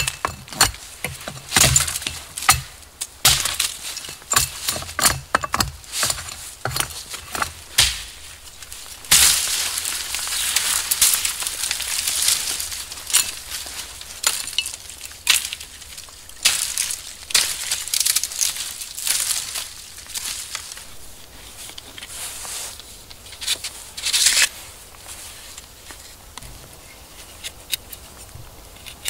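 Survival knife being worked by hand to make a saw: a run of sharp clicks and clinks, then about a second in from the tenth second a series of rasping scraping strokes, each lasting about a second, before it trails off into a few light ticks.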